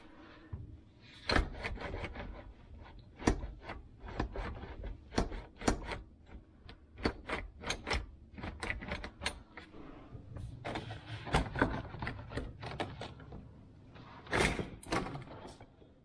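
Hard plastic dishwasher base parts being pulled and handled: a long run of sharp clicks and knocks at uneven spacing, with a louder, longer rattle near the end.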